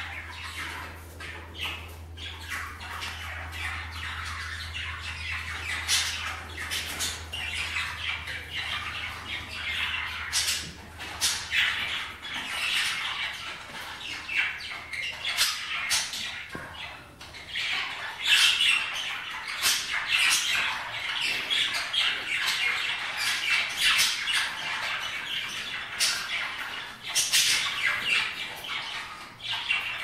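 A flock of budgerigars chattering and warbling without pause, with sharp squawks scattered through it. A low steady hum underneath stops about halfway through.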